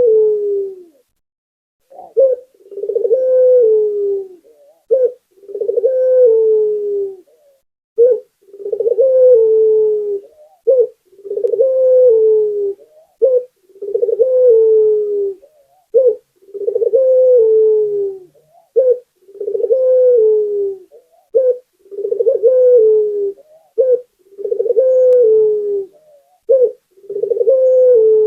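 Puter dove (domestic ringneck dove) cooing over and over: a short note, then a longer coo that falls in pitch, repeated about every two and a half seconds, around a dozen times.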